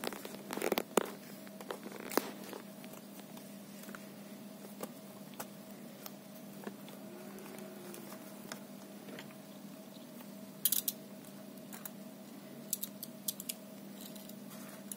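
Scattered clicks, taps and rustles of hands handling a laptop palmrest assembly and its thin keyboard backing sheet, with a cluster of small clicks near the end as a screwdriver is brought to it. A steady hum runs underneath.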